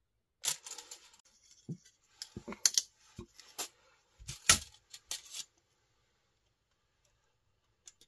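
A folding knife and a steel tape measure being handled: a run of clicks, rattles and knocks over the first five seconds or so, two of them sharper than the rest, as the blade is folded shut and the tape measure is set down and picked up. A single small click near the end.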